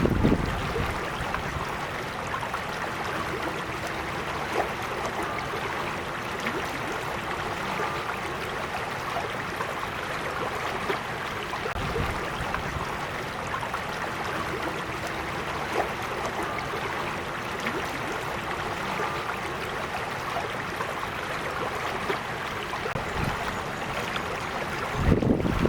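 Gentle creek water flowing steadily, with a brief low rumble near the end.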